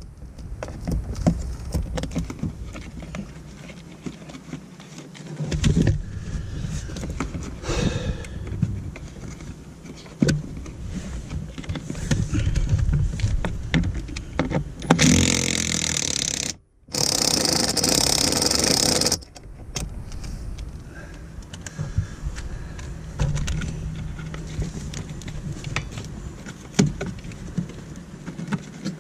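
Small cordless power screwdriver running in two short bursts a little past halfway, with a rising whine, while backing screws out under the dashboard. Around it are the clicks and knocks of the tool and parts being handled.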